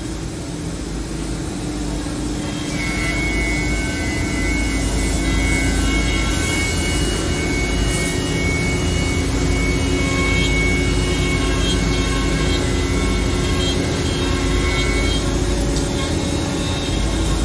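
Holztek HT-1325RBS CNC router running, its router spindle whining steadily over the drone of the machine. A higher-pitched tone joins about three seconds in and drops away about two seconds before the end.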